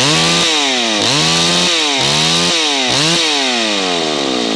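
Old two-stroke chainsaw running and being revved. The throttle is blipped about five times, and each time the engine speed rises sharply and then falls away.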